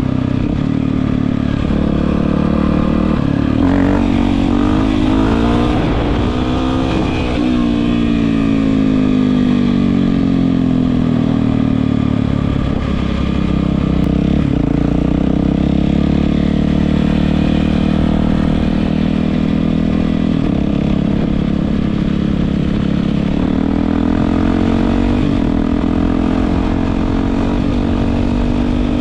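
Yamaha WR450F single-cylinder four-stroke dirt bike running through an Akrapovič exhaust, with engine pitch rising as it revs. The pitch climbs about three to seven seconds in, then falls slowly and holds steady, and rises again a little before the end.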